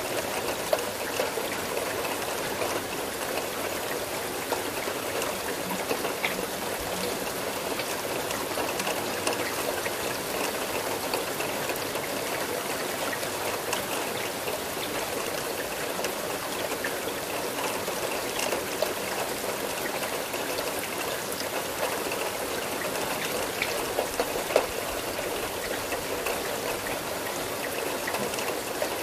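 Steady rain falling: an even hiss of water with scattered sharper drop ticks.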